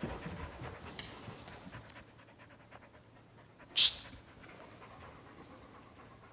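Dogs panting quickly and faintly after their excited rush: a chocolate Labrador and a golden retriever. One short, sharp, high-pitched click comes about four seconds in.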